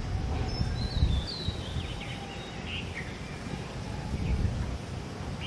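Several short, high bird chirps and little gliding calls over a steady low outdoor rumble that rises and falls.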